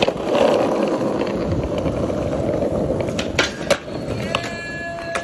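Skateboard wheels rolling on asphalt with a steady rumble, and sharp clacks of the board a little past three seconds in. A short steady pitched tone sounds near the end.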